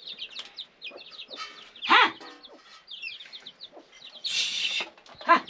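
Chickens clucking, with rapid high chirps running throughout and two louder short calls, about two seconds and five seconds in. There is a short hissing burst just after four seconds.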